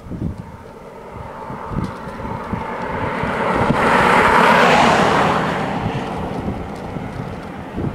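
An SUV drives past over the level crossing. Its road noise swells to a peak about four to five seconds in, then fades. Wind rumbles on the microphone underneath.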